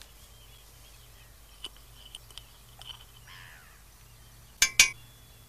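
A metal teaspoon and can clinking against a firework mortar tube as a teaspoonful of petrol is spooned in: a few light clicks and some handling, then two sharp clinks in quick succession near the end.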